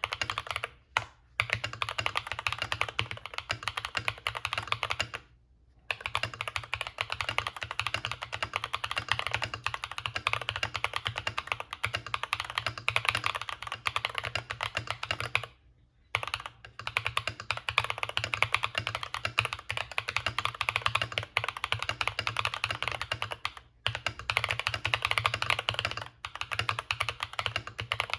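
Continuous fast typing on an Epomaker TH80 Pro mechanical keyboard with Akko V3 Cream Yellow Pro linear switches, dampened with case foam and PE foam and fitted with hand-lubed stabilizers. The run of keystroke clacks is broken by a few short pauses, the longest around the middle.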